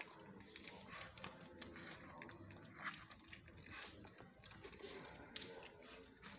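Pit bull puppy eating soft food from an aluminium bowl, eagerly: faint, irregular wet chewing and smacking, with a few louder clicks.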